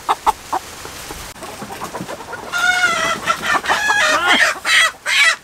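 Chickens squawking and clucking in alarm as a bird is chased in its run: a long squawk about two and a half seconds in, then a quick run of short, sharp calls.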